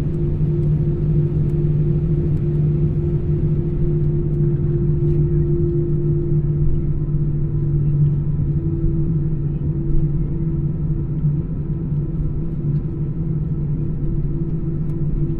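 Steady cabin rumble of an Airbus A320 airliner: a low, even drone with a constant hum running through it.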